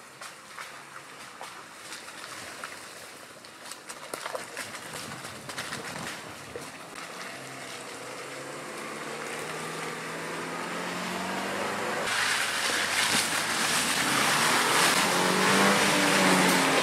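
Land Rover Defender 90 P300's 2.0-litre four-cylinder turbo petrol engine working as the SUV crawls along a dirt track, its tyres crunching over dirt and twigs. The engine is faint at first and grows steadily louder, its pitch rising and falling a little. About twelve seconds in it jumps to its loudest, with a rush of tyre and gravel noise.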